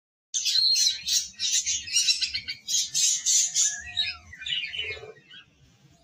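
Budgerigar chatter: rapid chirps and squawks that start abruptly, stay dense for about four seconds, then thin out.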